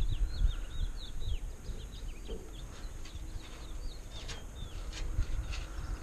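Small birds chirping in quick runs of short, falling high notes, thickest in the first two seconds and sparser after, over low thumps and rumble.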